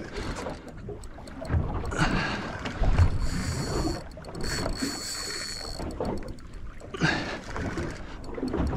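Small boat rocking on the open sea, water slapping against the hull with dull thumps and wind buffeting the microphone. A thin, steady high whine runs for about two seconds near the middle.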